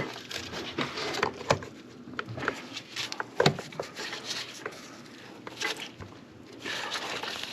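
Hands working a plastic PCV hose and its fittings in an engine bay: scattered clicks, knocks and rubbing as the connectors are pushed and lined up, with one sharper click about three and a half seconds in.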